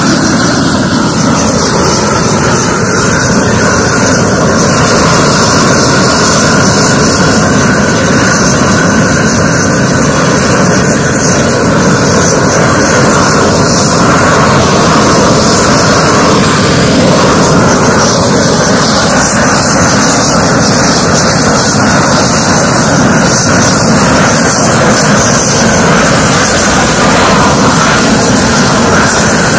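Long-handled gas torch burning steadily and loudly, its flame held against the edges of a newly laid tarmac patch to heat and seal the joint.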